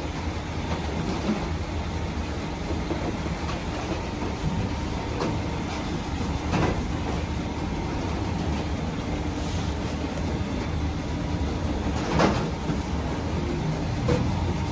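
Steady low mechanical rumble and hum of bakery machinery, with a few sharp knocks from hands working dough on a metal baking tray.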